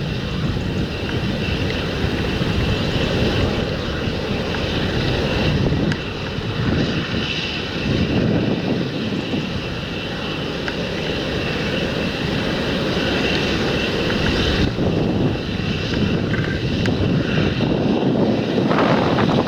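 Large John Deere tractor running steadily while working a field.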